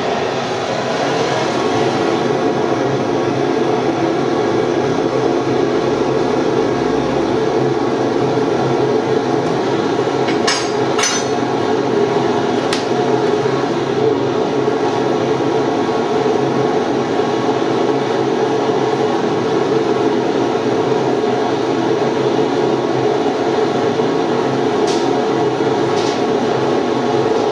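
Blowtorch roaring steadily as its flame is played into the forge's coal and paper to light the fire, with a few sharp clicks about ten seconds in and again near the end.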